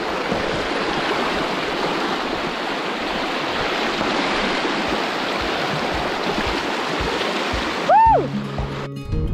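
Fast river current rushing over rocks, a steady whitewater hiss. About eight seconds in, a brief high-pitched sound rises and falls; it is the loudest moment. Background music comes in right at the end.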